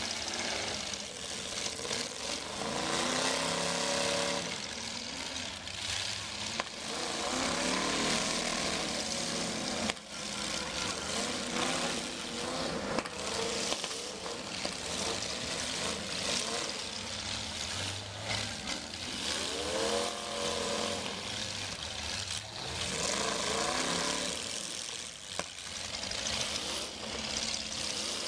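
Demolition derby cars' engines revving hard again and again, the pitch climbing and dropping with each push, over a thick din of several engines running at once. A few sharp bangs of cars slamming into each other, about ten seconds in, again a few seconds later, and near the end.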